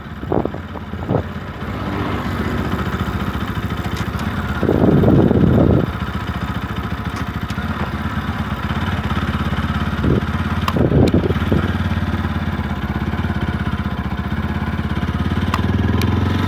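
Motorcycle engine running steadily while riding, with short louder surges about five seconds in and again near eleven seconds.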